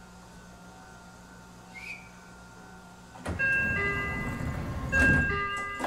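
Meitetsu 9500-series electric train standing with a steady low hum. About three seconds in comes a loud rumbling clatter with a two-note electronic door chime sounding twice, and a heavy thud about five seconds in, as the doors close before departure.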